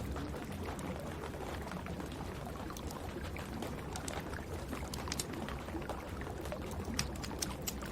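Wood fire crackling in a fireplace: scattered sharp pops and clicks, the loudest about seven seconds in, over a steady low rumble and the hiss of rain.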